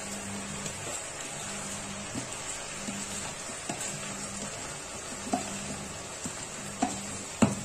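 Peas, potato and masala sizzling in oil in a steel kadhai as raw rice is tipped in from a plastic bowl, with a few short, light knocks and the sharpest one near the end.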